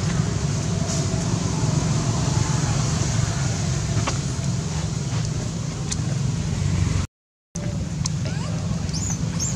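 A steady, low engine drone runs throughout, cutting out completely for about half a second around seven seconds in, with a few faint high chirps near the end.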